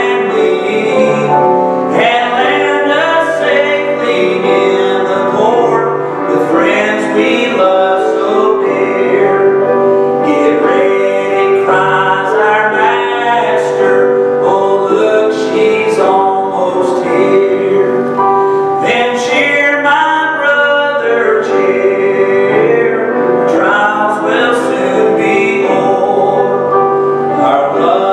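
A man singing a gospel song, accompanied on grand piano.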